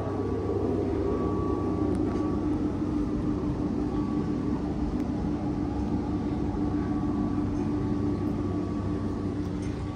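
Steady mechanical hum of the yacht's onboard machinery: a low rumble with a steady droning tone and a fainter, higher whine above it.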